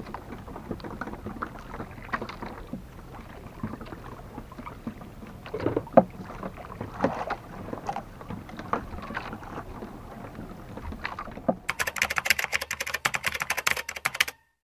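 Water lapping and sloshing against the hull of a small outrigger boat, with scattered knocks. Near the end this gives way to a rapid run of typewriter-style clicks, a text-typing sound effect, which cuts off suddenly.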